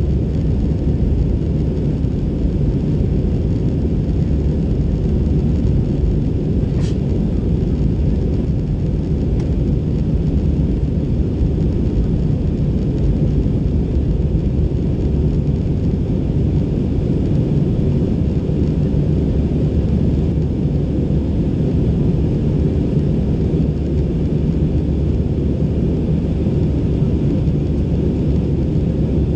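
Steady in-cabin noise of an Airbus A320 in flight: a deep, even rumble of engines and airflow heard from a window seat. A faint click comes about seven seconds in.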